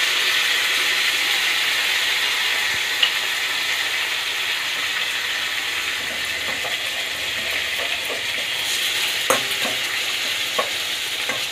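Chicken breasts and chopped garlic sizzling steadily in hot oil in a nonstick pan, with soy, tomato and chilli sauce added. Near the end a metal spatula stirs and taps against the pan a couple of times.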